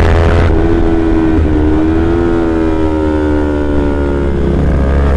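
Kawasaki Z250's 249 cc parallel-twin engine running through a Prospeed aftermarket exhaust while riding at a fairly steady throttle, its note sagging slowly lower and then dropping about four and a half seconds in. Wind rumble on the helmet microphone sits under it.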